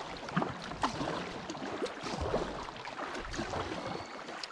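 Water splashing and lapping around a kayak moving on a river, with many small irregular splashes and drips.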